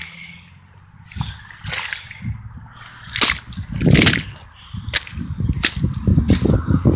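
Feet squelching and splashing in wet quicksand as they sink and are pulled free, a run of wet slaps and crackles with irregular spacing. The loudest comes about four seconds in.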